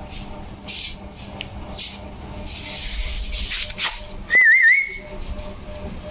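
A short wavering whistle about four seconds in, lasting about half a second and ending on a brief steady note, among faint scratchy rustles.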